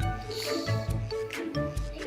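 Music with a steady beat, a bass line and a melody.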